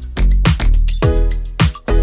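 Background music with a steady beat: a deep kick drum that drops in pitch about twice a second, over a sustained bass line and held tones.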